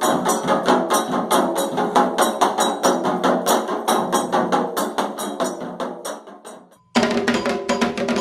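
Afro-Brazilian ceremonial percussion music with a fast, steady rhythm of sharp strikes, the kind played for Candomblé rites. It fades out about six seconds in, goes silent briefly, then cuts back in abruptly just before the end.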